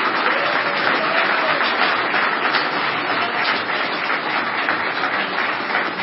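Audience applauding: sustained, steady clapping from a crowd at the end of a talk.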